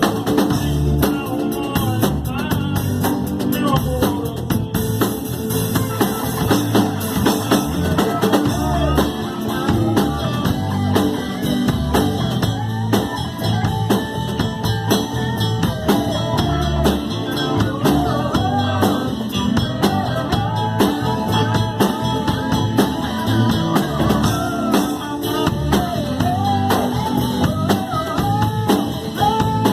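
Blues band playing together in a rehearsal room, a drum kit keeping the beat under electric guitar, with a lead melody line bending up and down over the groove.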